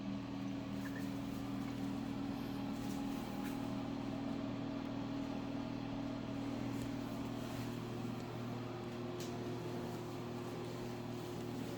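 Steady low mechanical hum made of several pitched tones, holding an even level throughout.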